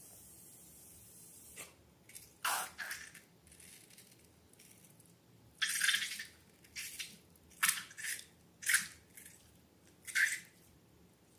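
Slime being squished and worked by hand: a run of short, wet squelches at irregular intervals.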